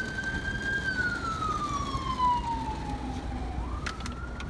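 Fire truck siren on its wail, heard from inside a car: a held high tone glides slowly down over about three seconds, then sweeps quickly back up near the end.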